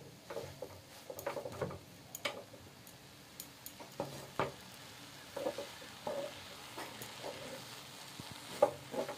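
A spatula stirring and turning grated carrots frying in ghee in a nonstick pan: irregular scrapes and light taps against the pan over a faint, steady sizzle. The carrots have cooked down soft on low heat.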